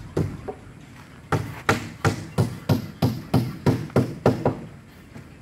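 Hammer blows on wood: two knocks, then a run of about ten even strikes at roughly three a second, stopping about a second before the end.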